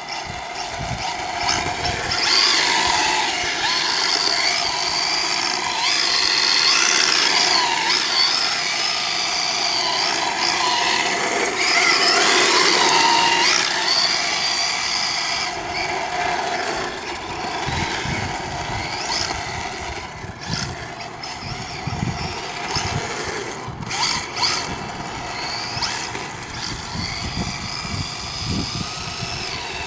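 Electric 1/10-scale RC drift car's motor whining, its pitch rising and falling over and over with the throttle as the car drifts through figure eights. Low rumbles come and go in the second half.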